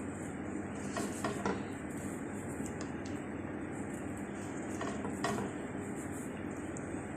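A utensil stirring chicken liver in a pan, knocking against the pan a few times about a second in and again around five seconds, over a steady low sizzle.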